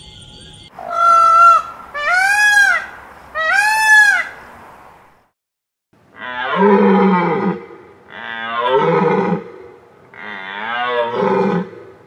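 Indian peacock giving three loud calls in quick succession, each rising and then falling in pitch. Then, from about six seconds in, three longer, lower calls about two seconds apart, a deer stag's bellow.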